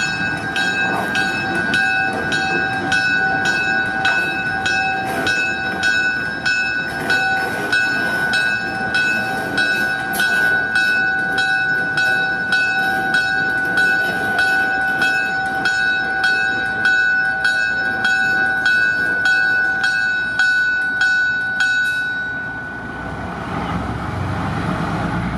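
A locomotive bell ringing steadily, about two strikes a second, over the rumble of a moving train. The bell stops about 22 seconds in, and a low rumble swells near the end.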